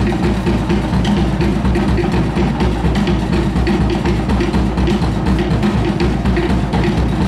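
Live drumming with a steady, fast beat and hollow wooden clacking, the percussion that accompanies a luau fire dance.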